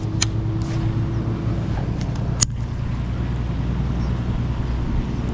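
A steady low engine rumble, like a nearby motor vehicle running. It is broken by two sharp clicks, one just after the start and a louder one about halfway through.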